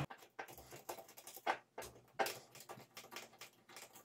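Light, irregular clicks and taps of a monitor's sheet-metal board bracket and its circuit boards being handled and turned over on a table.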